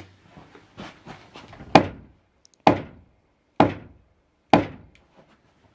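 A U.S. Optics SVS 1-6x riflescope, in its mount, smacked hard against a painted wooden wall: two lighter knocks, then four sharp thunks about a second apart. This is a deliberate impact torture test of the scope's durability and zero.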